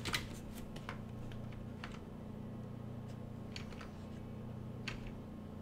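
Scattered soft clicks from work at a computer, irregular and a dozen or so in all, over a low steady hum.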